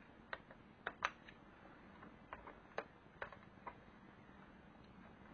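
Faint, sharp clicks and taps of a thin metal pry tool against the sheet-metal frame of an LCD panel as the frame is worked loose, about seven irregularly spaced over the first four seconds.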